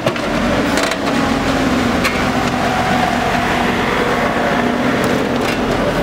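Hidromek backhoe loader's diesel engine running steadily under load as its bucket digs a trench, with a few scrapes and knocks of soil and broken asphalt.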